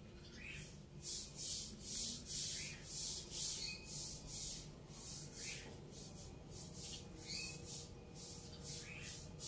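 Giant African land snail rasping at leaves with its radula as it feeds: short, dry scraping strokes about twice a second, fainter in the second half.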